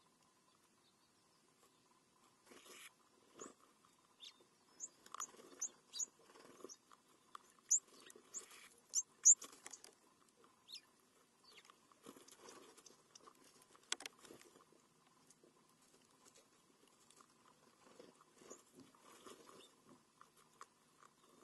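Rabbit and small birds feeding on scattered seed on gravel close by: irregular pecking, scratching and crunching, with a quick run of short high bird chirps about five to nine seconds in.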